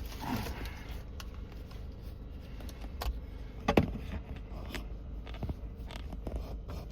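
Car engine idling steadily, with a few sharp clicks and knocks over it, the loudest about four seconds in.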